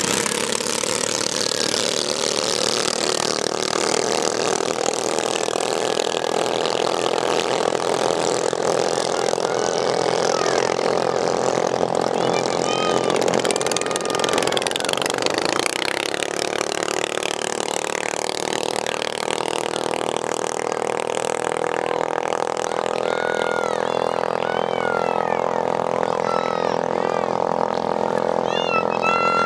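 Engines of several small racing boats running flat out together, a steady buzzing drone whose pitch shifts about halfway through, with a few short rising-and-falling calls over it.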